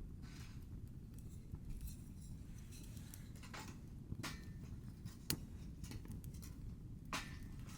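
A few scattered light clicks and taps of small objects being handled, over a low steady rumble; the sharpest click comes a little past five seconds in.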